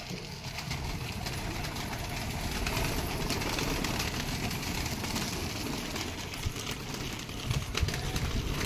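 Domestic pigeons' wings flapping and clattering as a group of birds takes off and flutters out of a wire loft, with many quick wingbeats close together and a low rumble underneath.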